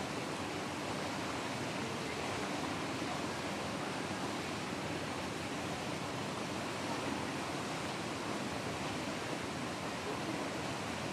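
Steady, even rushing noise with no distinct events or changes.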